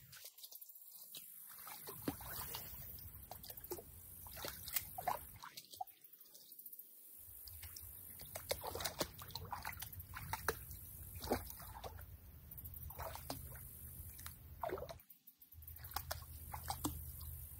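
Lake water sloshing and trickling in the shallows, with scattered small splashes.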